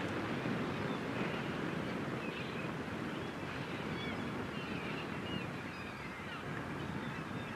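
Steady outdoor waterside noise of wind and water, with short bird chirps here and there.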